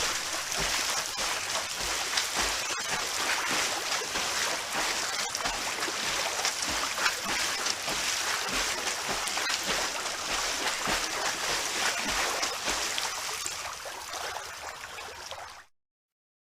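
Swimmers splashing in a pool: a steady wash of churning water with many small splashes. It fades out near the end and cuts to silence.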